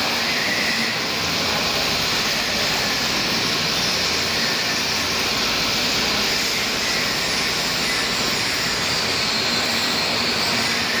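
Mini backhoe loader's engine running steadily, a continuous even noise with no revving or breaks.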